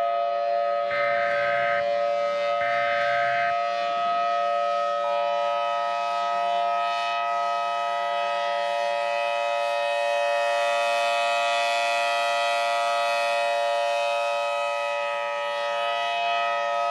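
Emergency Alert System tones. Two short buzzy data bursts in the first few seconds close out the SAME digital header. About five seconds in, the steady two-tone attention signal starts (853 and 960 Hz together) and holds. All of it sits over a constant drone of several held tones.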